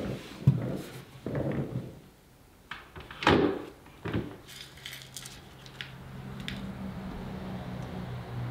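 Knocks and metallic clinks as a cherry cupboard's flap door and its metal fittings are handled and fitted, with the loudest knock about three seconds in. After that a faint steady low hum carries on.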